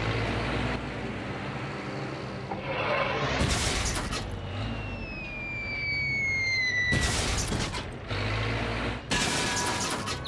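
Cartoon sound effects: a steady low rumble with a whistle that falls slowly in pitch over about three seconds, broken by several loud, noisy bursts, the longest about halfway through and another near the end.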